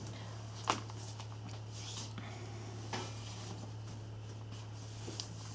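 Quiet handling noises as a person gets up and puts a soft tape measure around her hips: a sharp click less than a second in, a softer knock about three seconds in and faint rustling of clothing, over a steady low hum.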